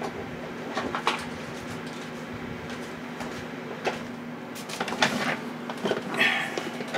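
Objects being handled and moved about on a workbench while someone searches for something: a few scattered knocks and clatters over a steady low hum.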